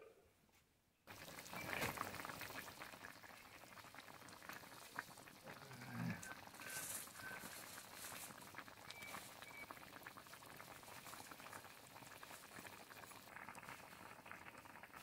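Fish curry boiling hard in an open metal pan over a wood fire: a steady bubbling and popping that starts about a second in.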